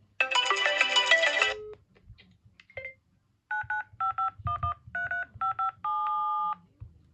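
A phone's musical ringtone plays briefly and cuts off about a second and a half in. Then touch-tone keypad dialing follows: seven short two-tone beeps and a longer last one, as a number is keyed in.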